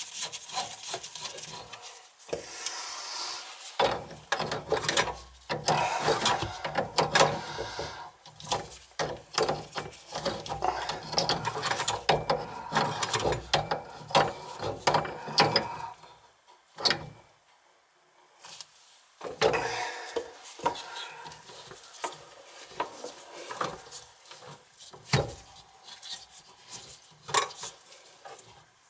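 Metal scraping, rubbing and irregular clicking of an adjustable wrench and gloved hands on a chrome under-sink angle-stop shutoff valve, as its rebuilt, freshly greased stem is tightened and its handle turned. There is a short lull a little past halfway.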